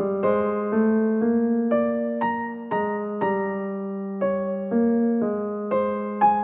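Piano music, a slow melody of single notes struck about twice a second over held lower notes.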